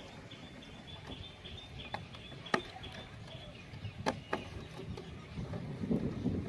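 Sharp clicks of plastic bottles being handled in the water, the loudest about two and a half seconds in and two more around four seconds, with water sloshing near the end. Rapid high-pitched chirping continues in the background.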